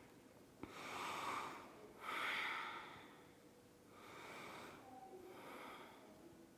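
A woman breathing audibly through nose and mouth, slow deliberate yoga breaths: about four soft breaths of roughly a second each, faint.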